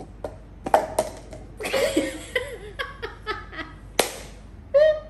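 Two women laughing hard, breaking into a high-pitched squeal near the end, with a few sharp slaps or knocks, the loudest about four seconds in.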